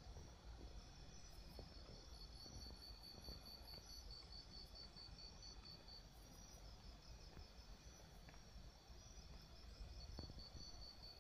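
Faint cricket chirping: a high, rapid pulsed trill of about four pulses a second that pauses midway and starts again near the end, over a low background rumble.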